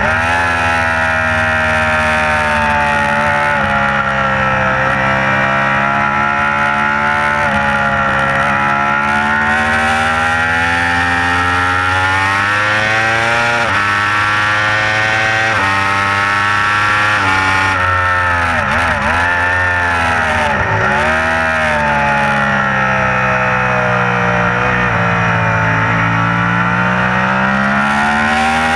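2015 Yamaha YZF-R1's crossplane inline-four at racing revs, heard onboard: the engine note climbs and drops in steps as it shifts up through the gears at full throttle, then falls with quick downshifts under braking a little past the middle and climbs again out of the corner.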